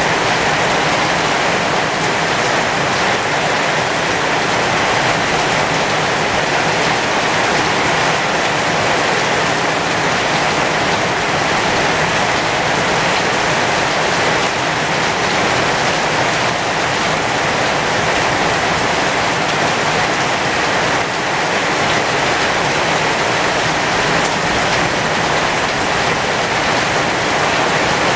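Heavy thunderstorm rain falling on the leaves of a flowering pomegranate tree, a steady, even hiss that stays unchanged throughout.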